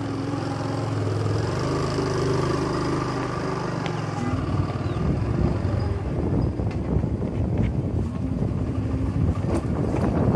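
Motorcycle engine running at low speed, heard from the bike itself. About four and a half seconds in, the steady hum gives way to a rougher, uneven rumble with rattles as the bike rides onto a bumpy dirt track.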